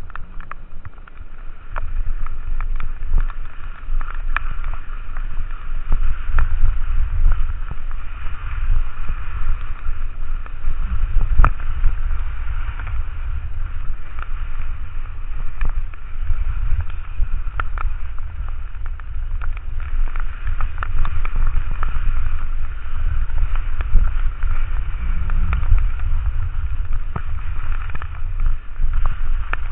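Wind buffeting the microphone in a heavy, gusting low rumble as the skier goes downhill, over a steady hiss of skis on wet snow, with scattered sharp ticks.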